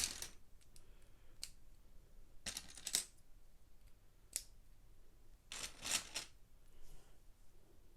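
Plastic Lego pieces clicking and clattering as they are handled and fitted during a build. The clicks come in short clusters: one at the start, single clicks a little after a second and past four seconds, and longer rattles about two and a half seconds and about five and a half seconds in.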